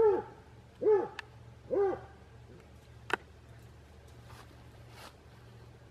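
Black and tan coonhound barking three times, about a second apart, as it fights a raccoon; a single sharp click follows about three seconds in.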